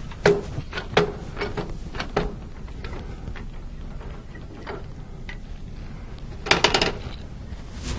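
Clicks and knocks of wood lathe parts being adjusted and moved into place by hand, a handful in the first two seconds and a short clatter about six and a half seconds in.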